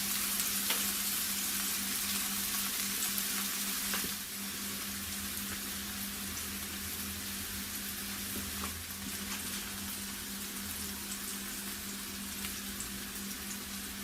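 Watermelon pieces sizzling on a hot grill pan, a steady hiss with scattered small crackles that eases a little about four seconds in. A steady low hum runs under it.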